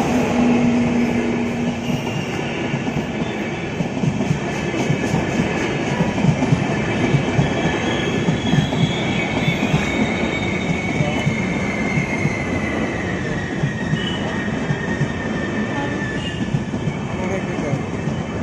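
Indian Railways express train running on the rails with a steady rumble and a high wheel squeal that slides slowly down in pitch around the middle. A low horn note holds over the first two seconds and then stops.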